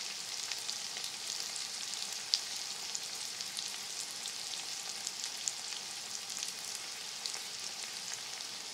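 Chopped tomatoes and onions sizzling steadily in hot ghee in a wok, with scattered small pops and crackles and one sharper pop a little over two seconds in.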